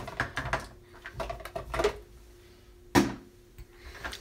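Makeup containers being handled: a run of small clicks and rustles, then one sharp click about three seconds in, as the face powder is got out to be applied.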